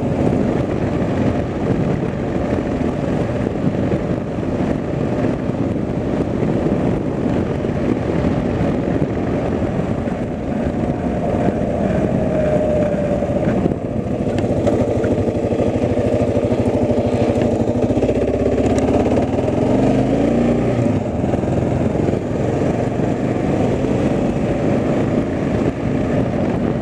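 Vehicle engine running on the move, with steady road and wind rumble. The engine note shifts, then falls away about eighteen seconds in as the vehicle slows.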